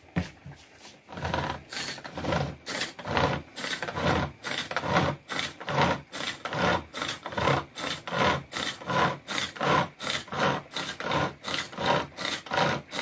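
Rhythmic back-and-forth scraping, about two strokes a second, starting about a second in and keeping an even pace.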